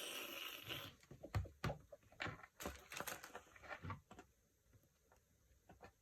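A brief rustle of packaging, then a string of light clicks and taps from small plastic doll parts and accessories being handled, dying down for the last couple of seconds.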